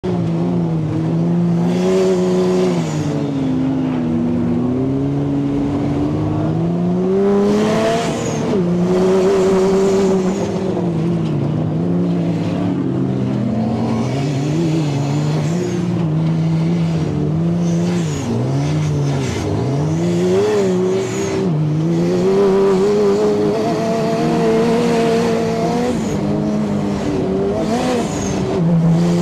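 Turbocharged Honda engine of a sandrail running under constantly changing throttle, its pitch climbing and falling as it speeds up and eases off, with occasional rushes of noise.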